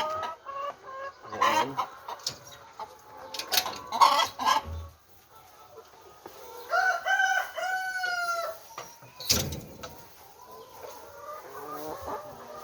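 Chickens clucking in a coop, with a rooster crowing in one long drawn-out call about seven seconds in. Several sharp knocks sound in the first half, the loudest about four seconds in.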